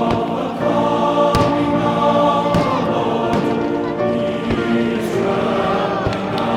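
Choral music with sustained singing, with several sharp firework bangs popping over it.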